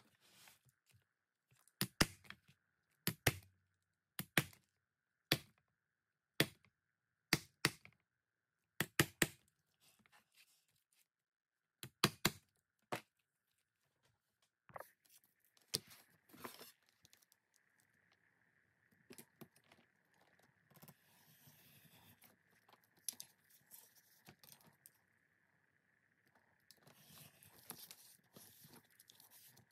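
Leatherworking at the bench: a series of sharp knocks, roughly a second apart, in the first half, then stretches of scraping and cutting noise from tools worked on leather. A faint steady high tone runs behind.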